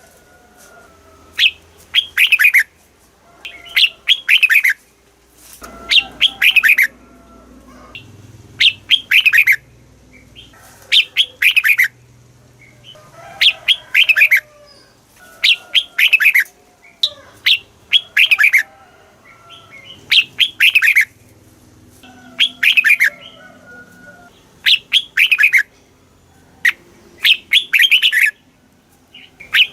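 Red-whiskered bulbul singing: short, loud warbled phrases of falling notes, repeated about every two seconds. It is a recorded caged-bird song of the kind played to rouse other bulbuls.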